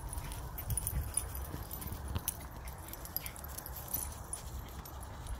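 Two puppies play-wrestling on grass, making small dog noises, with scattered short clicks and knocks.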